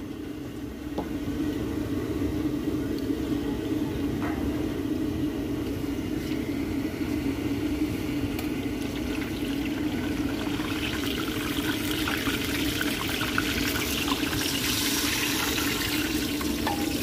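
Gulab jamun deep-frying in oil in an iron karahi over a gas burner: a steady rushing noise, with a hissing sizzle that grows louder from about eleven seconds in.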